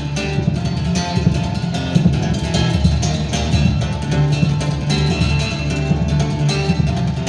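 Solo fingerstyle playing on a Maton Michael Fix model acoustic guitar: picked notes moving over low bass notes that ring on underneath.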